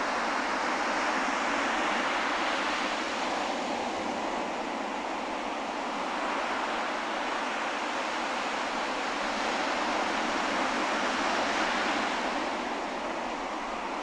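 Surf breaking and washing up a sandy beach: a steady rushing hiss that swells and eases, fullest about two seconds in and again about ten to twelve seconds in.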